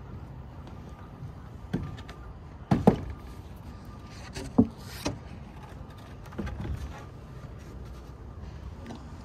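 Irregular wooden knocks and thumps from boots and hands on roof-truss lumber as a worker climbs across it, the loudest a little under three seconds in, with a short cluster of softer knocks later.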